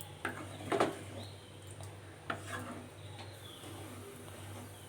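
A ladle stirring curry in a pan, scraping and knocking against the pan a few times, over a steady low hum.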